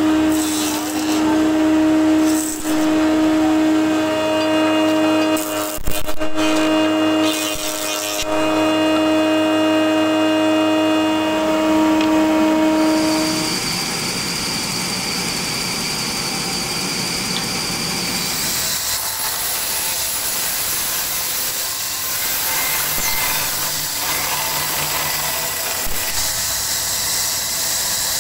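A woodworking machine's motor hums steadily, with a few sharp knocks about six seconds in. About halfway through the sound changes to a band saw ripping a wooden plank, a steady hiss that grows brighter and louder after a few more seconds.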